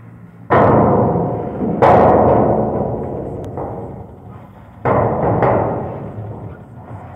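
Heavy booming bangs from an emptied tipper truck's steel dump body and tailgate as the body comes down and the truck pulls away, over a low engine rumble. The two loudest bangs come about half a second and two seconds in, with more about five seconds in, each ringing away over a second or so.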